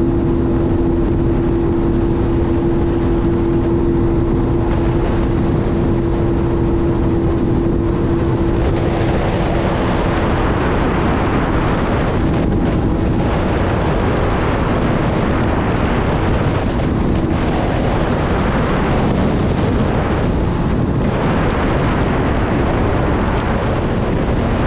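Sea-Doo RXT-X personal watercraft running under way, a steady engine drone mixed with wind on the microphone and the rush of water. About eight seconds in, the rush of wind and water grows louder and covers most of the engine tone.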